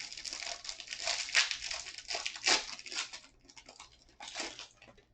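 A trading-card hanger box being torn open: a quick run of crackling and crinkling from the cardboard and plastic packaging, which stops about four and a half seconds in.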